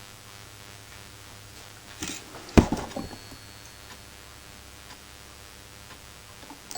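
Handling noise: a few light clicks about two seconds in, then one sharp knock half a second later with a couple of softer knocks after it, over a low steady room hum.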